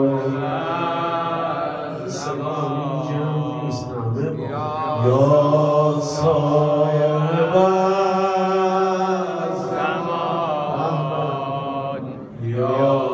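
A man's solo voice chanting a Shia mourning eulogy (maddahi) in long, drawn-out melodic phrases, with short breaths about four seconds in and near the end.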